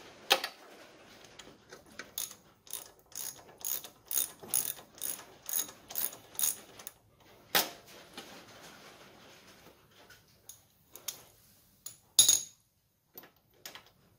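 Socket ratchet clicking in a steady run of short back-strokes, about two a second, as it turns the spark plug out of a lawn tractor engine. The run is followed by a single sharp click and, near the end, a louder clatter.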